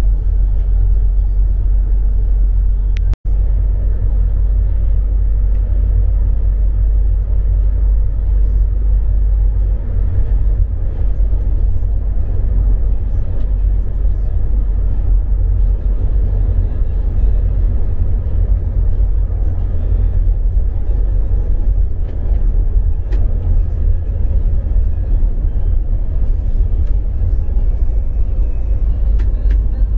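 Steady low rumble of a moving bus, engine and road noise heard from inside the passenger cabin.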